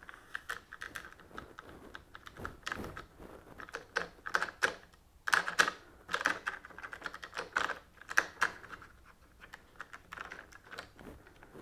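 Hard plastic parts of a Ryobi cordless lawn mower's handle and lever clicking and knocking as they are worked by hand, an irregular run of light clicks and taps.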